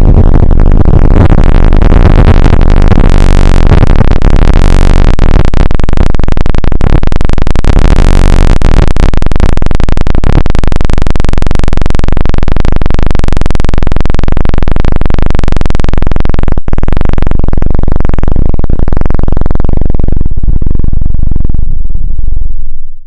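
Loud, dense synthesized electronic sound, a thick wall of noise heaviest in the bass, with a brief drop-out about two-thirds of the way through and a fade-out near the end.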